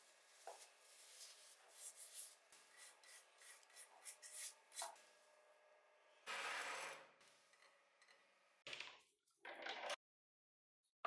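Damp, granular soil crumbling and rustling as gloved hands dig through it and pull a scale-model car body free, with many small scrapes and crunches. About six seconds in, a louder shower of soil runs off as the body is lifted.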